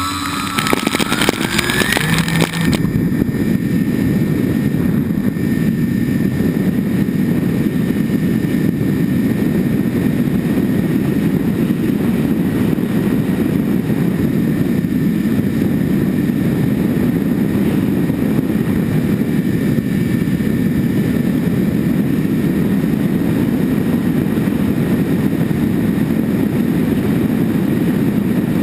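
Twin propeller motors of an RC model plane spinning up with a rising whine for the take-off run. About three seconds in this gives way to a steady, loud rush of wind and propeller noise on the onboard camera as the plane flies.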